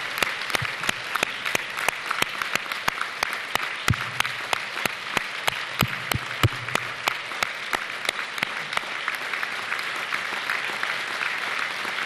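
Large audience applauding in a standing ovation. One pair of hands claps close to the microphone, about three sharp claps a second, standing out over the crowd until about nine seconds in; after that the applause is a steady patter.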